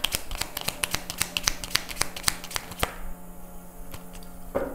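Tarot deck being shuffled by hand: a rapid run of card snaps and flicks for about three seconds, then quieter handling of the cards.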